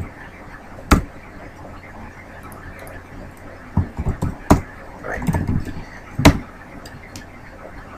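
Computer keyboard keystrokes: a few sharp, separate key clicks, the loudest about a second in, near the middle and about six seconds in, with brief low murmuring in between.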